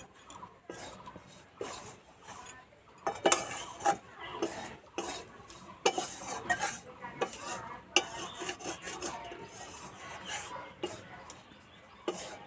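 Metal spatula stirring and scraping a dry, crumbly gram-flour and sugar mixture around a metal wok, with irregular scrapes and clinks against the pan.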